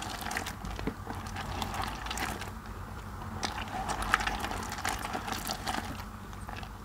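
Rubber-gloved hands squeezing and kneading mushy, wet soap paste in a bowl of soapy water, making a dense, irregular run of wet squelches and crackles.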